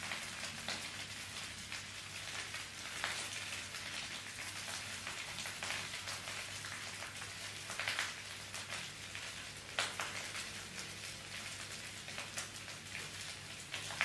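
Chocolate bar wrapper rustling and crinkling as it is picked at and torn open by hand, with sharper crackles a few times, over a steady crackly hiss and a faint low hum.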